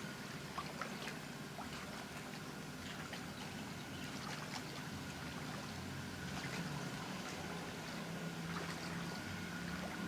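Floodwater trickling and flowing, with scattered small splashes and ticks, over a faint steady low hum.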